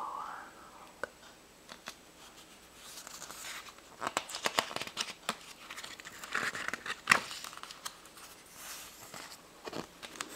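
Pages of a book being handled and turned: paper rustling and crinkling with scattered sharp page snaps, mostly in the middle, the sharpest about seven seconds in.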